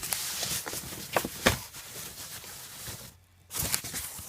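Rustling of packaging, with a few sharp clicks and knocks, as a boxed desktop PC is handled and unpacked. The sound drops out briefly a little after three seconds in.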